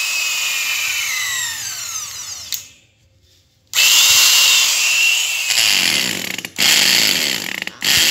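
Hitachi 100 V two-function electric drill running, then let go so its motor whine falls in pitch as it spins down and stops. After about a second of quiet it is switched on again, and the trigger is released and squeezed again a few times.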